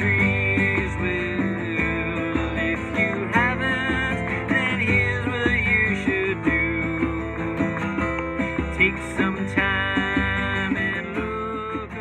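Background music: a song played on acoustic guitar.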